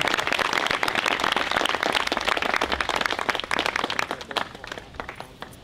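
Small audience applauding, thinning out to a few scattered claps near the end.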